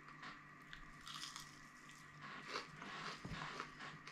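Crunchy bites and chewing on a crispy fried bleak, a small whole fish, in short crackly bursts about a second in and again through the second half.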